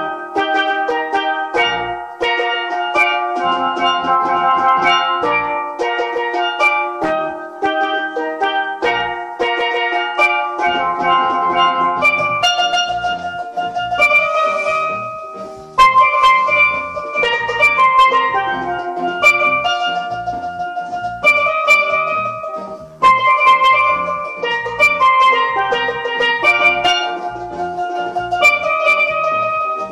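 Steelpan (steel drum) playing a melody of quick struck, ringing notes, with a low pulsing bass part underneath from about ten seconds in.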